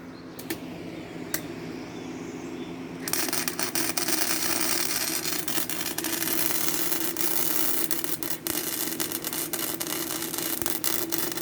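Gasless flux-core wire welder arc crackling and sizzling steadily as a weld bead is run, starting about three seconds in, over a steady hum.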